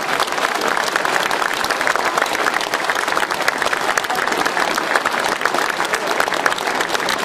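Audience applauding, a dense, steady clapping from a large seated crowd.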